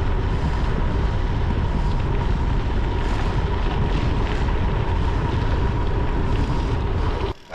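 Wind rushing over the microphone of a gravel bike at speed, with the rumble of tyres on a gravel road and a faint steady whine underneath. It cuts off suddenly near the end.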